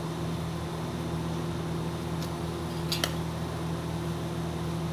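Stick welding machine humming steadily at idle, with two light clicks about two and three seconds in.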